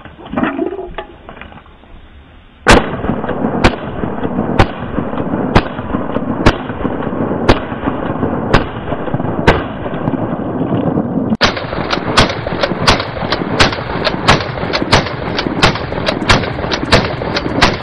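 Shotgun shots fired in quick succession: eight shots about a second apart, then, after a short pause, a faster run of two to three shots a second from a pump-action shotgun.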